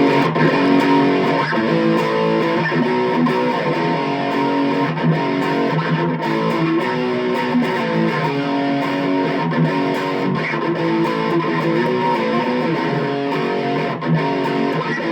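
Electric guitar on its bridge humbucker, played through a Boss Katana Mini 7-watt amp on its Brown high-gain setting, playing a riff of held notes and chords.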